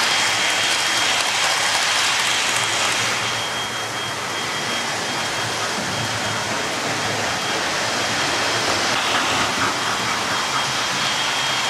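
Model trains running round a layout: a steady whirring rush of wheels on track and motors, with a thin high whine through it that fades for a few seconds mid-way and then returns.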